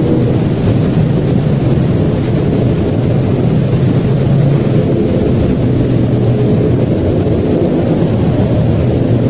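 Loud, steady low rumble of noise with faint held low tones beneath it: a sound-design drone of destruction rather than a recorded storm or engine.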